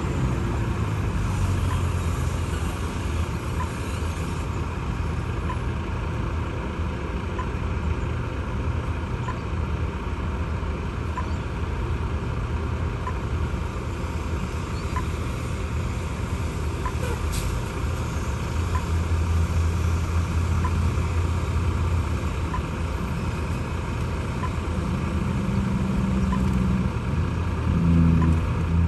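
Heavy diesel engine running steadily, growing louder near the end, with faint short beeps every second or two.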